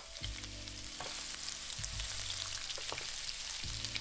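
Chopped garlic and ginger sizzling and crackling in hot mustard oil with cumin and fenugreek seeds in a wok, stirred with a wooden spatula, with a few scrapes. A low steady hum comes in just after the start.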